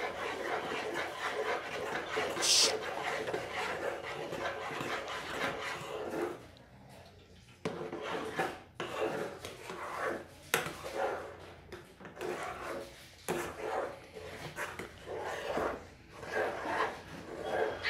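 A spoon stirring and scraping against the side of a pot through a thick, foamy mixture, in repeated strokes. The sound is busier for the first few seconds, then falls to separate scrapes with an occasional clink after a short lull.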